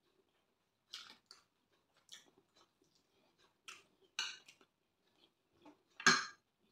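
Close-up chewing of a mouthful of rice and beans, with short clicks and scrapes of a metal spoon in a glass dish; the loudest comes about six seconds in, as the spoon scoops food.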